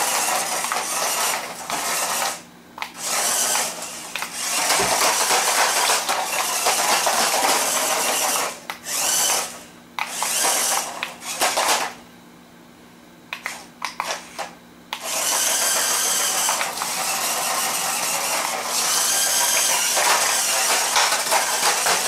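Small electric motors and plastic gears of a toy remote-control stunt car whirring in bursts of a few seconds as it is driven across a hard floor, with short stops between bursts and a longer pause about twelve seconds in.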